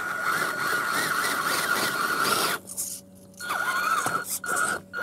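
Axial Wraith RC truck's electric motor and drivetrain running at low speed, a steady high whine over gear noise; it cuts out for about a second midway and then starts again.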